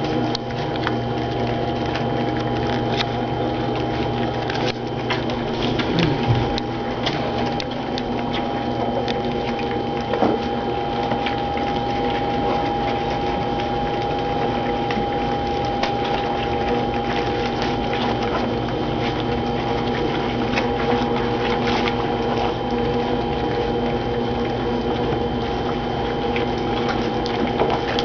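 A litter of young goldendoodle puppies lapping and smacking at soft puppy food in shallow dishes: a dense, busy patter of small wet licks and clicks, over a steady background hum.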